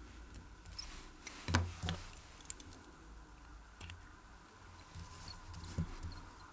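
Light clicks and taps of small watchmaker's tools and parts while a Seiko Kinetic movement is taken out of its case, with two sharper clicks close together about a second and a half in and another near the end.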